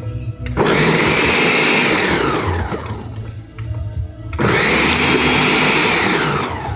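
Ninja smoothie maker's blender motor pulsed twice, each burst about two seconds long, chopping frozen banana chunks and soaked dates. Each pulse starts suddenly and drops in pitch as the motor spins down on release.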